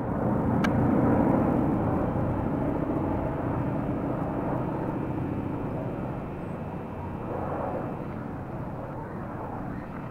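A formation of four North American AT-6 Texan trainers flying over, their nine-cylinder Pratt & Whitney R-1340 radial engines running together as a steady drone. The sound is loudest about a second in and slowly fades as the formation passes.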